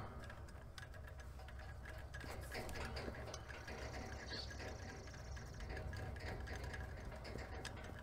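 Faint, irregular clicking and handling noise from a gloved hand opening the valves on a refrigerant gauge manifold, over a low steady hum.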